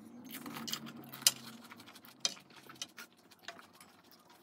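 Crisp panipuri (golgappa) shells crunching as they are bitten and chewed: a run of sharp, irregular crackles, with one louder snap a little over a second in.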